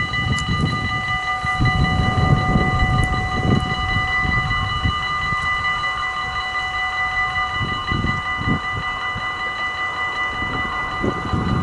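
Level-crossing warning bell ringing steadily while the crossing's barrier arms lower, with an irregular low rumble underneath.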